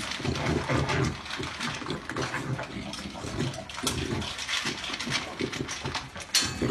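Dog eating dry kibble from a metal bowl: quick, irregular crunching and chomping, with kibble clattering against the bowl.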